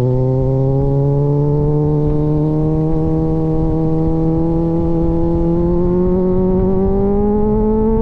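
Kawasaki Z900's inline-four engine through an aftermarket AR exhaust, pulling steadily in gear under way, its note slowly climbing in pitch as the revs rise.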